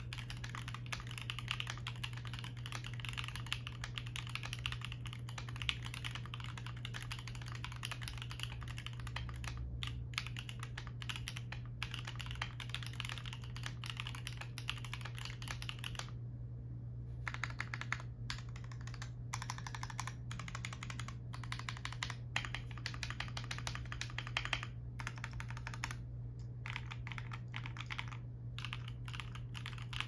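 Typing on a foamless CIY GAS67 mechanical keyboard with a carbon-fibre plate, stock MMD Nipple linear switches and doubleshot ABS Cherry-profile keycaps: quick, continuous keystroke clacks. From about nine seconds in, short pauses break the typing into runs. A steady low hum sits underneath.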